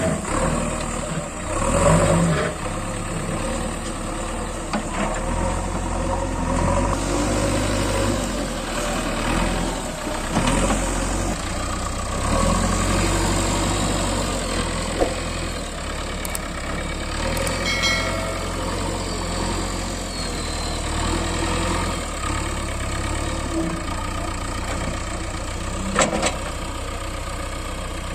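JCB 3DX backhoe loader's diesel engine running as the machine works, its level rising and falling with the load. A couple of sharp metallic clanks come through in the second half.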